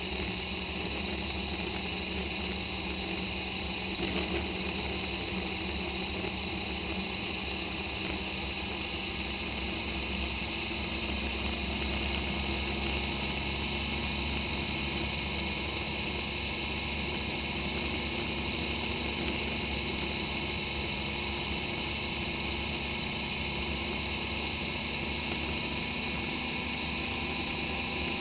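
Motorcycle engine and wind and road noise, a steady drone while riding at an even cruising speed. There is a short knock about four seconds in, likely from a bump in the road surface.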